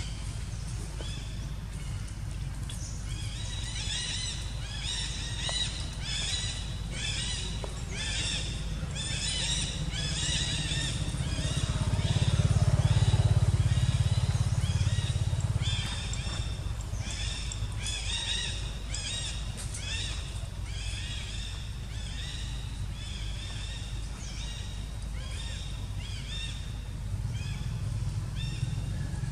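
An animal call repeated about once a second, short and high, starting a few seconds in, over a low drone that swells for a few seconds near the middle like a passing engine.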